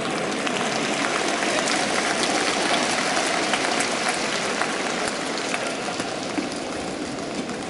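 Audience applause: a dense patter of many hands clapping, swelling over the first couple of seconds and easing off toward the end.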